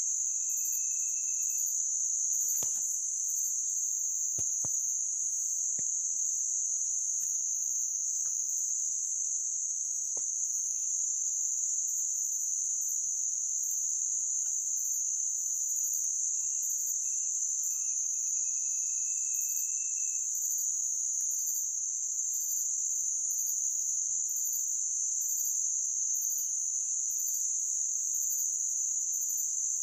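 Steady high-pitched drone of forest insects, crickets or cicadas, running without a break. A few faint, level whistles, each a second or two long, sound over it twice.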